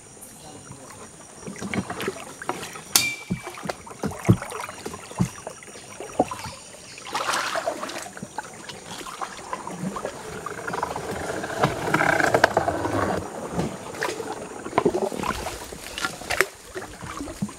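Wooden paddles working a wooden dugout canoe: paddle strokes splashing in the water, with scattered sharp knocks of paddle against hull and a longer, louder stretch of splashing past the middle.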